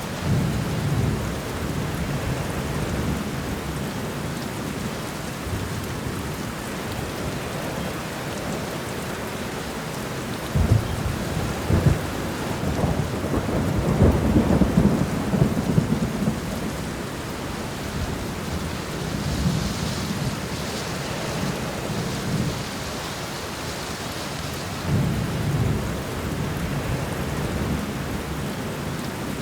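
Thunderstorm: steady rain with several rolls of thunder. The loudest comes about a third of the way in, with a few sharp cracks, and rumbles on for about five seconds; weaker rumbles come at the start and in the second half.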